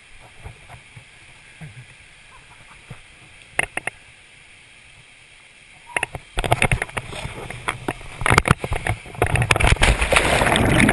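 Three sharp clicks in the quiet first seconds. Then loud rushing wind on a camera worn by a rider on a rope swing, becoming louder churning water as the camera plunges into the river near the end.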